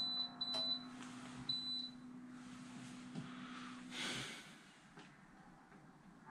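Three short high electronic beeps in the first two seconds from a small handheld device, over a steady low hum that cuts off about four seconds in, followed by a soft breath-like rush.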